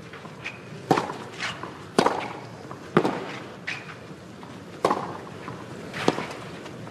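Tennis rally on a clay court: a racket strikes the ball five times, about once a second, each hit a sharp pop, with fainter ticks between hits.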